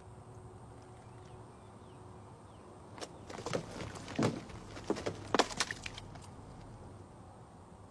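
A paper coffee cup falling onto a dirt road, its plastic lid coming off and the coffee spilling: a short cluster of light knocks and clatters a few seconds in.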